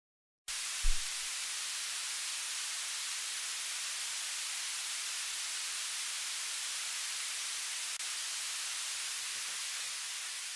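Steady, even hiss, strongest in the high range, with a brief low thump about a second in.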